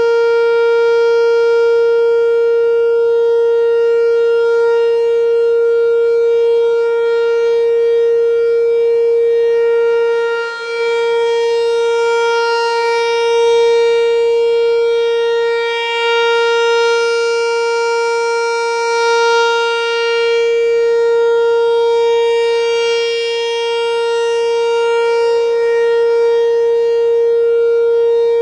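Whelen 4004 electronic outdoor warning siren sounding a loud steady tone during a monthly test. The pitch holds level while the loudness swells and dips briefly a few times as the rotating speaker head turns.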